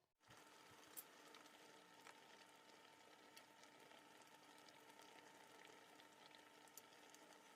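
Food cooking on the stove: a faint, steady hiss with scattered small pops and crackles, starting suddenly just after the beginning.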